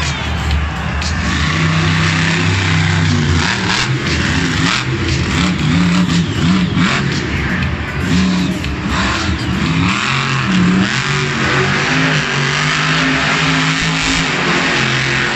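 Supercharged V8 of the Zombie monster truck revving hard as the truck spins donuts on dirt, its pitch rising and falling with the throttle.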